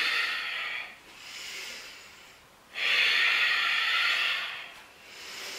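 A woman breathing slowly and audibly, each breath a soft rush of air. The loudest breath starts about three seconds in and lasts about two seconds.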